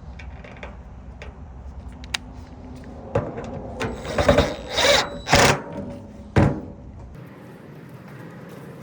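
Handling noise from the dryer being worked on: a few light clicks, then from about three seconds in a run of loud scraping and rubbing noises ending in a sharp knock.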